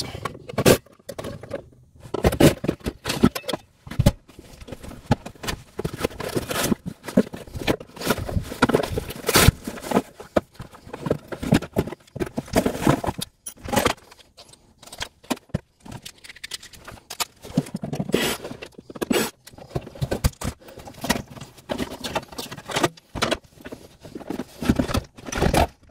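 Gloved hands handling an RV power converter and its wiring: an irregular run of clinks, knocks, scrapes and rustling as the unit and cables are moved into place.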